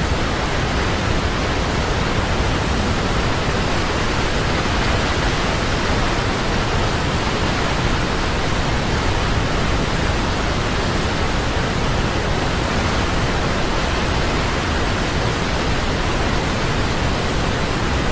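Waterfall rushing: a steady, unbroken wash of falling water, with no change in level.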